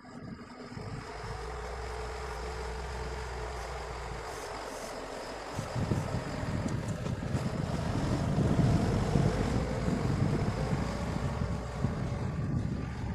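Heavy machine's engine running, getting louder and rougher from about six seconds in, with wind buffeting the microphone.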